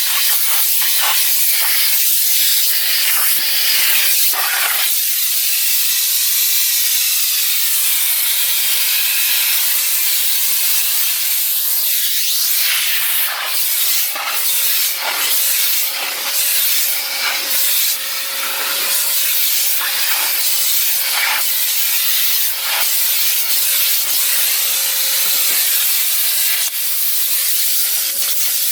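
Electrolux Ergospace canister vacuum cleaner running steadily: a constant motor whine over rushing air, with the nozzle rubbing and scraping across surfaces in repeated short strokes, more often in the second half.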